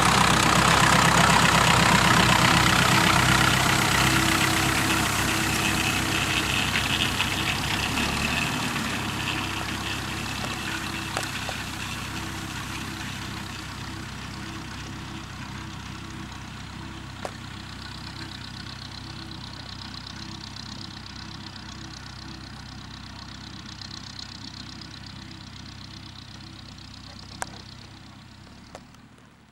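Ferguson TEF-20's four-cylinder diesel engine running steadily as the tractor pulls a springtine grass harrow and drives away, fading gradually until it is faint near the end.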